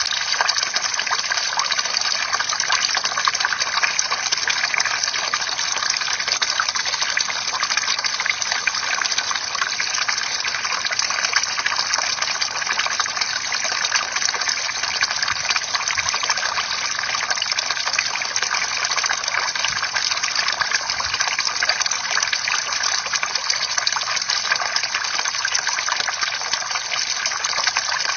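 Bamboo water fountain: water pouring steadily from the bamboo spout and splashing into the water below, an unbroken rush with no knocks or pauses.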